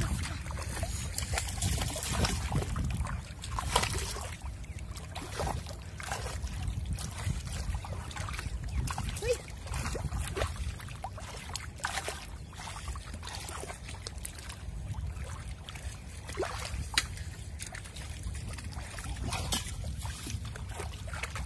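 Shallow water splashing and sloshing in repeated short strokes as a person wades and grabs with bare hands and feet in ankle-deep floodwater, over a steady low rumble.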